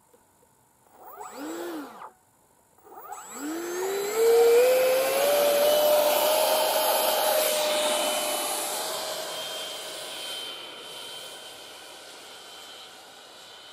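Electric ducted fan of a Freewing F9F Panther RC jet: a short throttle blip that spools up and back down, then full power, a whine climbing steeply in pitch and settling into a steady high whine on the takeoff run, which slowly fades as the model climbs away.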